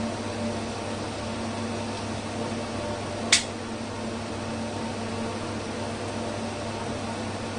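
Steady hum of equipment-room cooling fans, with one sharp snip of small hand cutters about three seconds in as a fiber pigtail is cut.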